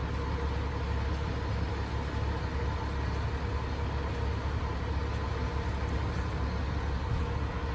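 A fire engine's engine idling steadily: a continuous low hum with faint steady tones above it.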